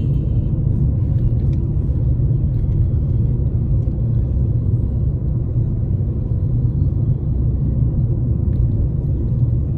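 Steady low rumble of a car cruising at about 35 mph, heard from inside the cabin: road and engine noise.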